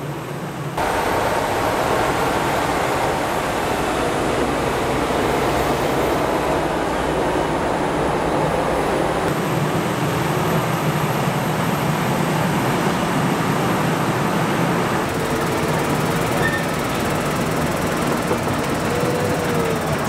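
Heavy tractor diesel engines running steadily as tractors drive over and compact chopped maize silage on a clamp. The sound jumps louder about a second in.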